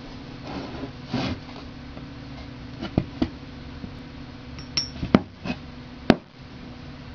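Sharp clicks and taps as a neodymium magnet and copper pipe are handled. A brief rustle about a second in is followed by about seven separate clicks from three seconds on; one has a short high ring, and the loudest comes about six seconds in.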